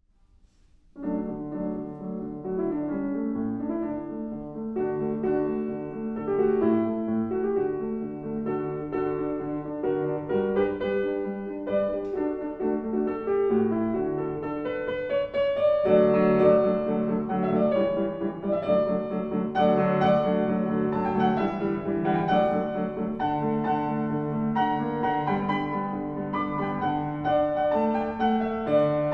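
Piano music played live, starting about a second in and continuing at a steady level.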